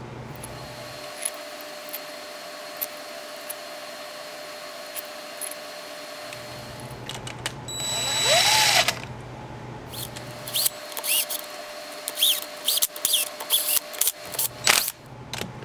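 Power drill briefly run to spin in the engine cover bolts about eight seconds in, its motor whining up and back down. Then a run of sharp metallic clicks and taps as the bolts are worked.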